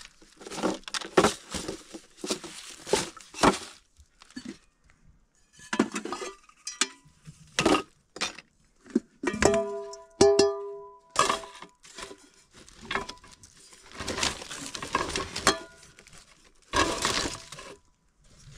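Hard objects knocking, scraping and clinking in an irregular series, with a short ringing clink about ten seconds in.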